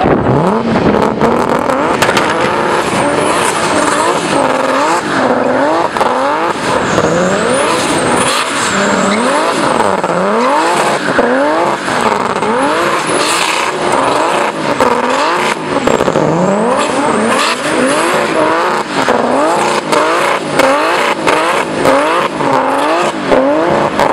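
A rear-wheel-drive car doing donuts: the engine revs rise and fall over and over, about once a second, as the spinning rear tyres squeal without a break.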